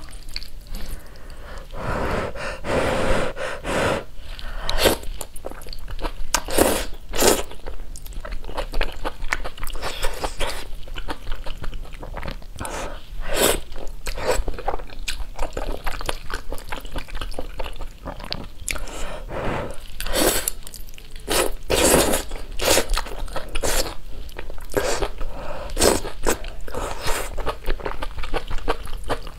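A person eating spicy instant noodles close to the microphone: slurping noodles and chewing, with many irregular sharp mouth and bite sounds.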